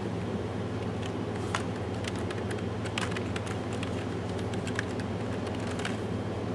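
Computer keyboard being typed on: quick, irregular key clicks over a steady low hum.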